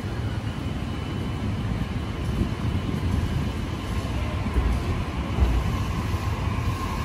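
A JR East E531 series electric multiple unit pulling away from the platform and gathering speed. It gives a low rumble with a thin electric motor whine over it, and it grows a little louder as the cars pass.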